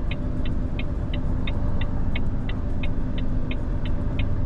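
Car-transporter truck's diesel engine running at low speed while the truck reverses, with its reversing beeper sounding short, rapid beeps, about three a second.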